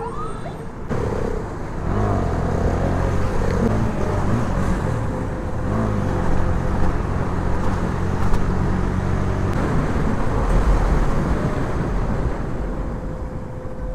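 KTM Duke motorcycle engine running while riding through traffic, revving up and easing off several times, with wind rushing over the microphone. A siren's wail fades out in the first moment.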